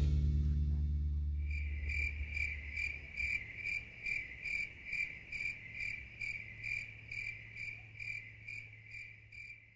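Cricket chirping in a steady rhythm, a little over two chirps a second, growing fainter toward the end. The tail of jazzy music dies away in the first second or so.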